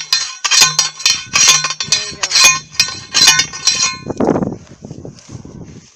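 Loud, sharp metallic clinks repeating about twice a second, each with a brief ring, stopping about four seconds in; a fainter, lower sound follows.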